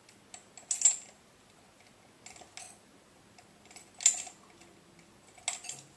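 Scattered light clicks and clinks of glass test tubes and small plastic bottles being handled on a lab bench, with two sharper glassy clinks about a second in and about four seconds in.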